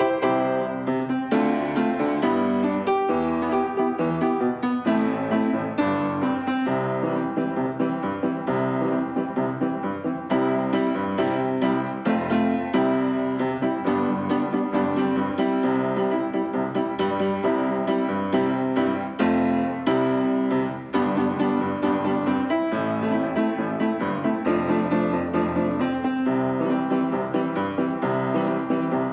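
Background piano music: a continuous tune of notes struck in quick succession.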